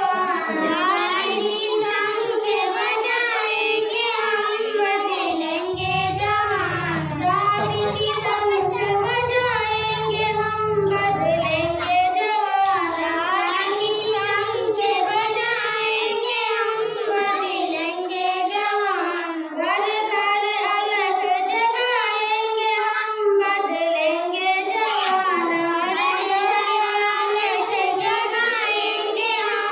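Three young girls singing a song together into microphones, their voices amplified, one melodic phrase after another with short breaks between.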